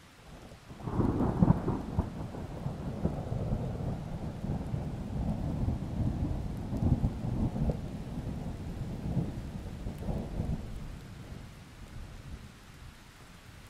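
A long, low, wavering rumble that comes in sharply about a second in and slowly dies away over some ten seconds, over a faint steady hiss.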